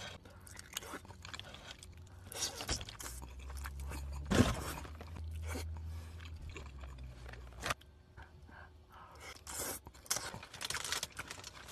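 Close-miked eating sounds: slurping up stretchy melted cheese and chewing, with wet mouth clicks and smacks scattered through, the loudest a little over four seconds in.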